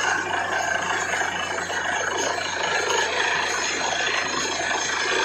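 Truck-mounted borewell drilling rig and its air compressor running steadily during drilling, a loud, even mechanical noise without pauses.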